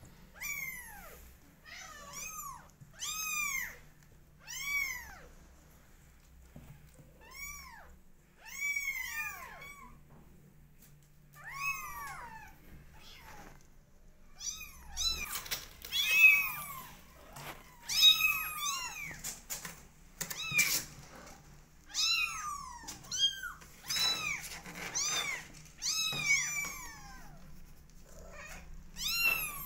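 A litter of 20-day-old kittens mewing: high-pitched calls that rise and fall in pitch, a few at a time at first, then coming thick and fast and overlapping in the second half.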